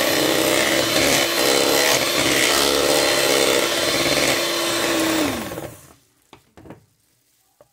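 Electric hand mixer beating cream cheese cheesecake batter in a bowl: a steady motor whine over the churning of the beaters. About five and a half seconds in it is switched off and winds down, followed by a few light knocks.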